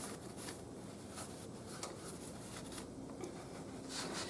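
Faint handling noises: light rustling with a few soft clicks, and a brief hiss near the end.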